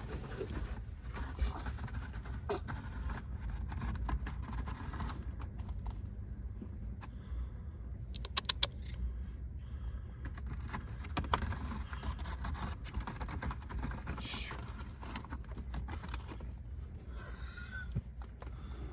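Cats playing with their toys: irregular small jingling, rattling and scraping sounds, with a quick run of clicks about halfway through, over a steady low rumble.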